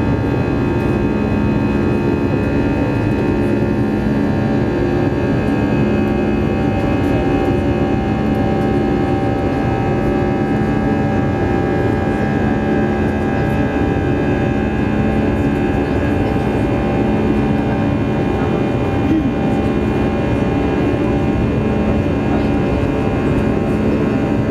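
Airbus A320 cabin noise during the climb after takeoff: a steady engine drone with several constant tones over rushing airflow.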